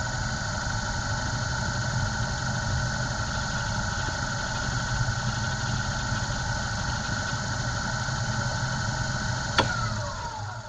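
Lathe running at high speed with a GoPro spinning in its chuck: a steady motor hum and high whine. About nine and a half seconds in there is a click, and the whine falls in pitch and fades as the lathe is switched off and spins down.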